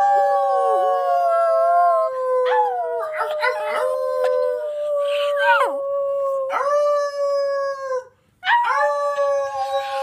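Small terrier howling in long, drawn-out notes with sliding pitch breaks, pausing briefly a little after eight seconds in and then howling again.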